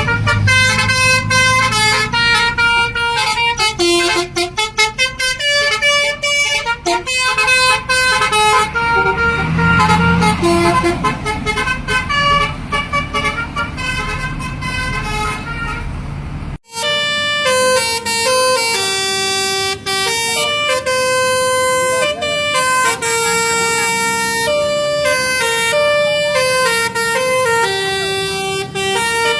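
Telolet basuri bus horn playing a melody in quick stepped notes, each note rich in overtones, over a low engine rumble. About halfway through it cuts off abruptly and a second horn tune of stepped notes follows, without the rumble.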